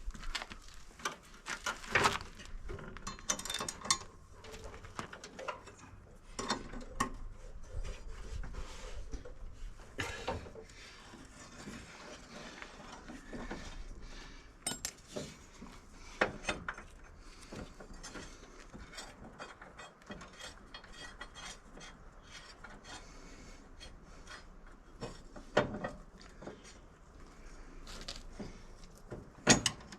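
Hand-tool work on a ride-on mower: irregular metallic clicks, clinks and knocks of wrenches and metal parts being handled, with no steady motor running.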